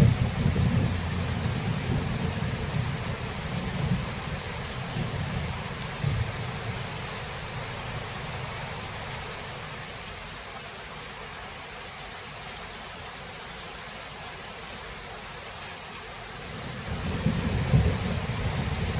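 Thunderstorm: steady rain hiss with rolling thunder. A deep rumble at the start dies away over several seconds, and a new rumble builds near the end.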